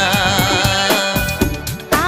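Bollywood film song playing: a held, wavering melody over a steady drum beat.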